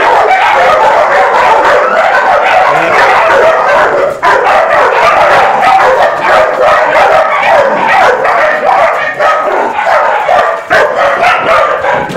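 A large pack of dogs barking at once in a loud, continuous din, excited as they wait to be fed.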